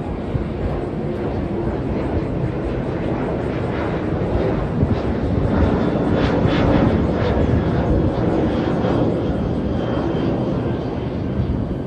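Jet airplane passing overhead: a loud rumbling roar that swells to a peak about six to seven seconds in and then eases off.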